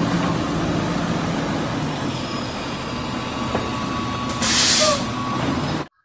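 Front-loader garbage truck's diesel engine running steadily, with a short loud hiss of air about four and a half seconds in.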